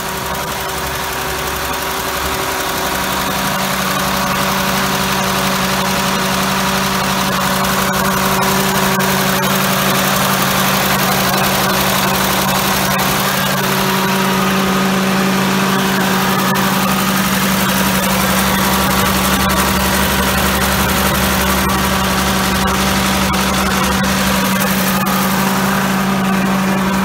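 Ford 9700 tractor's six-cylinder diesel engine running steadily, a constant hum that grows a little louder over the first few seconds, after being got running again during restoration.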